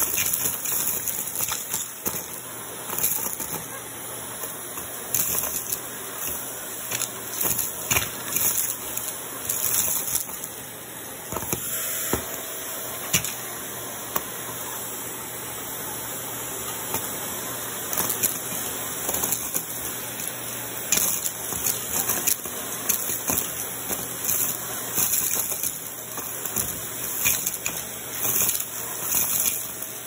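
Vacuum cleaner running steadily, its crevice tool on the wand sucking up plastic beads, sequins and confetti from a carpet, with frequent sharp clicks and rattles as the pieces are pulled up the wand.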